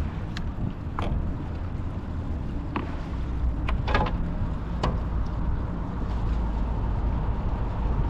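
Wind rumbling on the microphone, steady and low, with about six short sharp knocks scattered through it.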